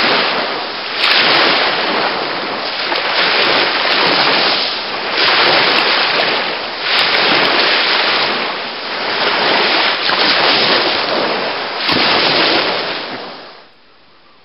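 Small sea waves breaking and washing up on a sandy beach right at the microphone, surging about every one and a half to two seconds. The surf cuts off near the end, leaving only a faint hiss.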